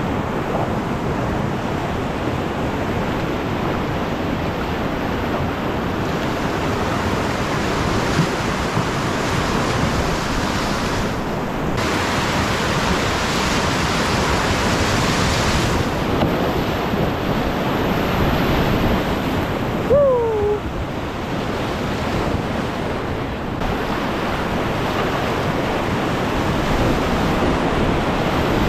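Whitewater rapids rushing steadily around the canoe, with wind noise on the microphone. A brief falling tone sounds about twenty seconds in.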